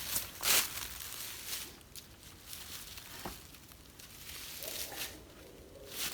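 Rustling and scraping of cut tree limbs being handled and wedged into the fork of a branch, loudest about half a second in, with one sharp knock of wood about three seconds in.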